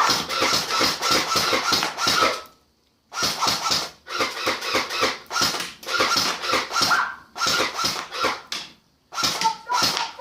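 Fully automatic airsoft Thompson-style gun firing in rapid bursts, roughly ten shots a second, with a steady whine under each burst. There are about six bursts, the first and longest lasting over two seconds, with short pauses between them.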